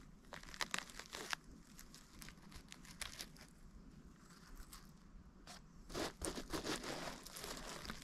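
Irregular crackling and rustling, like dry material being crushed or handled. A few sharp crunches come between half a second and a second and a half in, and a denser run comes around six to seven seconds in.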